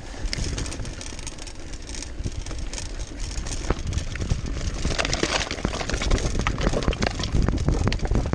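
Mountain bike rolling down a trail of loose slate plates: a dense clatter of tyres knocking and rattling over the stones and the bike's parts, over a constant low rumble. The clatter grows busier and louder about five seconds in.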